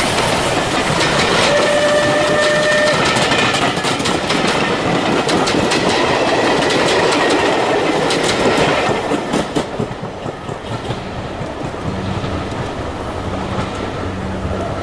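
Train passing close by, its carriage wheels clicking and clattering over the rail joints, with a short steady whine about two seconds in. The noise falls away after about nine seconds, leaving a low steady hum.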